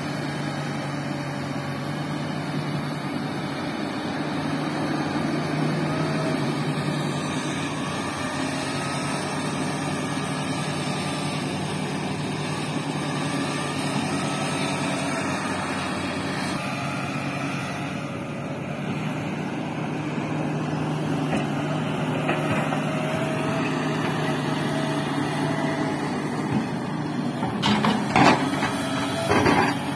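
Sumitomo SH350LHD excavator's diesel engine running steadily under load while digging and loading soil. A few loud knocks near the end.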